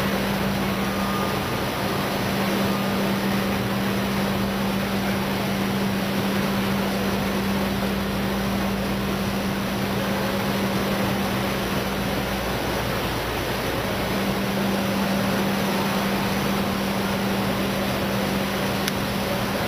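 ERSA Versaflow selective soldering machine running: a steady mechanical whoosh with a steady low hum that cuts out for a second or so partway through, then returns.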